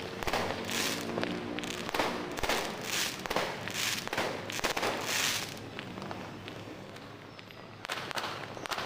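New Year fireworks and firecrackers going off: a rapid run of sharp pops and bangs with hissing bursts about once a second. The pops ease off for a couple of seconds near the end, then pick up again.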